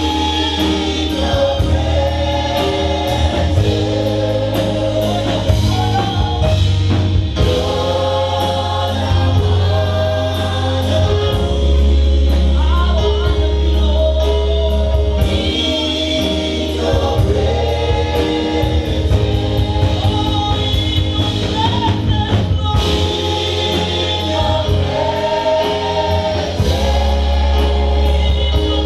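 Gospel choir singing with band accompaniment: several voices in harmony over a heavy bass line and a steady drum beat.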